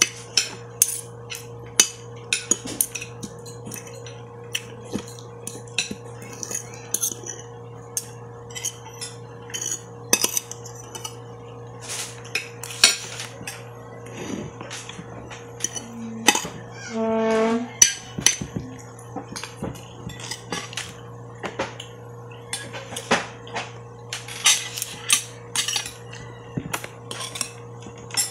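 Metal spoon and fork clinking and scraping against a plate of rice, in irregular sharp clicks throughout. About two-thirds of the way through, a short hum lasting about a second.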